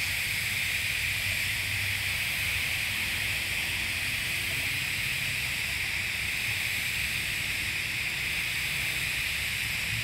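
TIG welding arc burning steadily on carbon steel pipe during the cap pass: an even, unbroken hiss with a low hum underneath.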